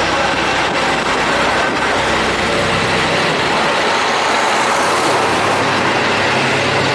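Aso Boy diesel train (KiHa 183 series railcars) passing close by at low speed with a steady, loud running noise of engines and wheels. Its deep hum drops away about three seconds in.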